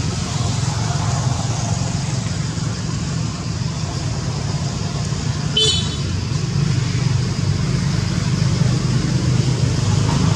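Steady low background rumble, with one short high-pitched toot a little past halfway.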